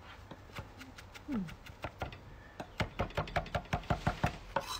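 Chef's knife chopping fresh parsley on a wooden chopping block: scattered taps at first, then quick, even chops at about six a second from about halfway through.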